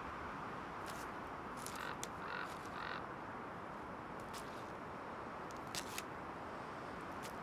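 Outdoor nature ambience: a steady hiss with scattered sharp clicks and two short animal calls, about two and three seconds in.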